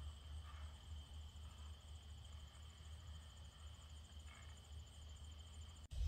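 Insects trilling steadily in a field: one continuous high trill and a higher, finer pulsing one, over a low rumble. The sound drops out for an instant near the end.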